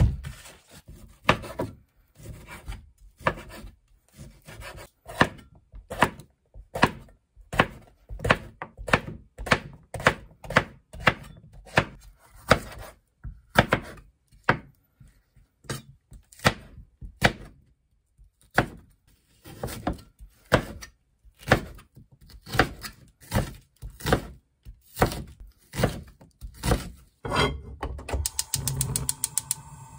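Kitchen knife chopping on a wooden cutting board, cutting bell pepper: a long series of sharp knocks. Near the end comes a quick run of even clicks as a gas stove burner is lit.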